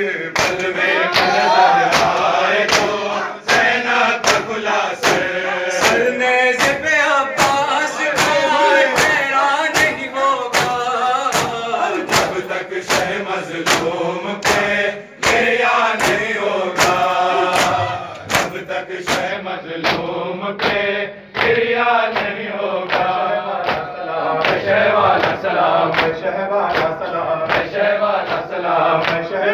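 Group of men chanting an Urdu noha (a mourning lament) in unison over a microphone. The chanting is kept in time by a steady beat of open-hand slaps on the chest in matam, a little more than one slap a second.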